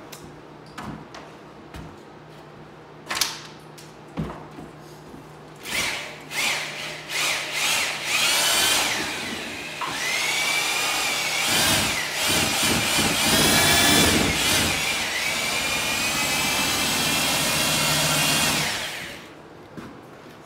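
Corded paddle mixer drill stirring drywall joint compound in a five-gallon bucket. It starts in a few short bursts, then runs steadily for about nine seconds with its whine rising and falling in pitch, and cuts off near the end. A few knocks come before it starts.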